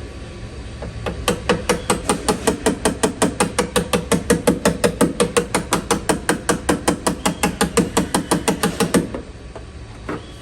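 Body hammer tapping rapidly and evenly on a car's sheet-metal quarter panel, about six blows a second, to knock a ridge down. The tapping starts about a second in and stops abruptly near the end, followed by one faint knock.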